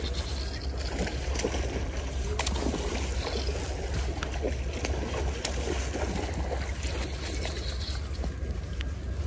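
Shallow creek water running and splashing, with a hooked coho salmon thrashing at the surface and a few brief splashes. Wind rumbles steadily on the phone's microphone underneath.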